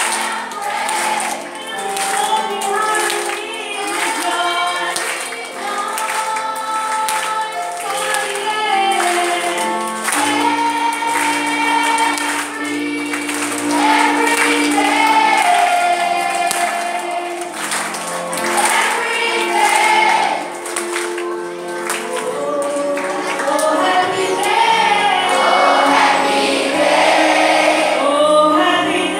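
A song sung by a group of voices over musical accompaniment, amplified through a PA loudspeaker.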